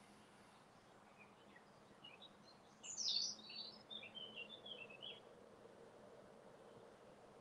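A small songbird singing a quick run of high chirps and twitters for a few seconds, about two seconds in, over a faint steady background hiss.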